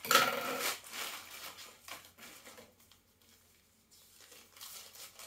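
Plastic courier bag crinkling and tearing as it is cut and pulled open with scissors. The loudest burst comes in the first second, followed by scattered softer rustles and another short rustle near the end.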